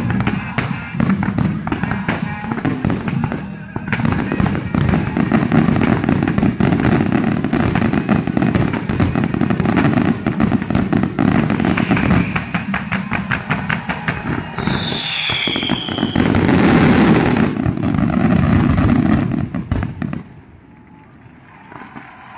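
Fireworks finale barrage: a dense, rapid run of bangs and crackling from many shells and comets fired together, with a few falling whistles about 15 seconds in. The barrage stops abruptly about 20 seconds in, leaving faint crackle.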